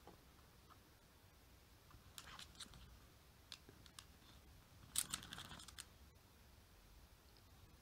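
Faint scattered scratches and clicks from a sphynx cat and a chihuahua puppy playing, with a short cluster of louder clicks about five seconds in.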